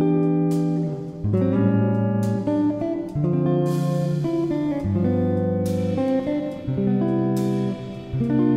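Background music: a guitar playing plucked chords, a new chord struck about once a second and left to ring.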